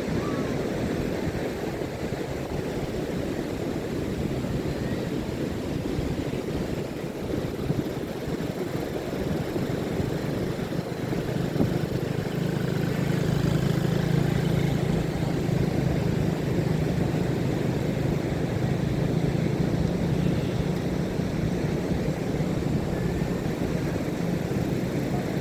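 Ocean waves washing on a beach, with wind. About eleven seconds in, a steady low engine hum joins them.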